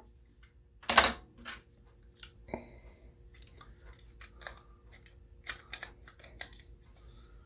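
Small clicks and taps of an Honor Guard pistol's metal fire-control mechanism and polymer grip frames being handled, with a louder knock about a second in and another sharp click about a second and a half later.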